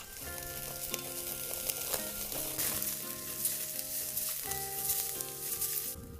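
Food frying in a hot pan, a dense sizzle with crackles that cuts off sharply near the end, over soft background music.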